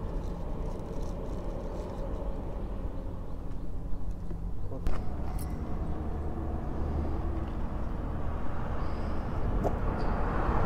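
Low, steady rumble of a motor vehicle's engine, with a short sharp click about five seconds in.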